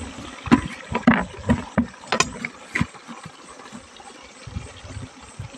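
A quick run of sharp knocks and bumps, about eight in the first three seconds, as a machete and a split wooden log-hive section are handled and set down; after that only a few soft thumps.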